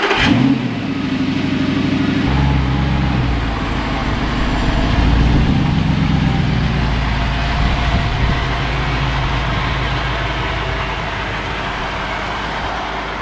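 Audi R8 engine just after starting, held at a raised idle that drops to a lower, steady idle about two seconds in, then idling as the car rolls forward.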